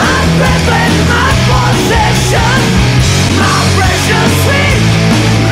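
Loud rock music soundtrack, dense and steady.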